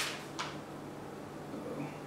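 Paper instruction sheet rustling as it is handled and unfolded, with two short crinkles in the first half-second.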